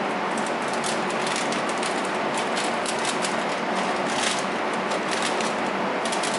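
Aluminium foil crinkling and crackling in irregular bursts as it is folded and rolled by hand around matches and a marker pen, over a steady background hiss.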